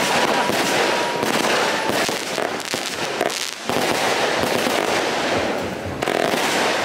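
Aerial fireworks going off overhead with a continuous dense crackle of bursting stars. A fresh loud burst comes about three and a half seconds in.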